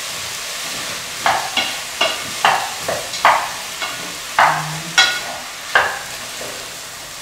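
Lamb and onions sizzling in a cooking pot while they are stirred with a spoon. The spoon strikes the metal pot about nine times, ringing clinks that start about a second in and stop near six seconds.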